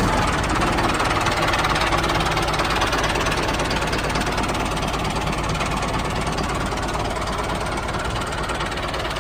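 Small engine of a DIY mini tractor running steadily with a fast, even knocking beat.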